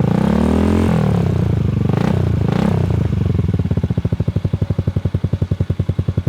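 Honda Forza/ADV 350 scooter's single-cylinder engine breathing through an Arrow aftermarket exhaust and header with the dB killer removed. The throttle is blipped, rising and falling, then twice more briefly, before the engine settles into an idle of distinct, even exhaust pulses.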